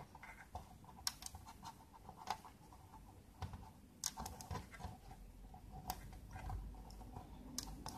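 Faint, irregular small clicks and scratches from an axial capacitor's wire leads being fed through the holes of a circuit board.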